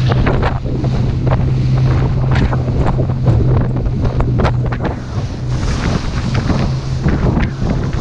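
A small open boat's motor running steadily under way through choppy sea, with water splashing and slapping against the hull and heavy wind buffeting the microphone.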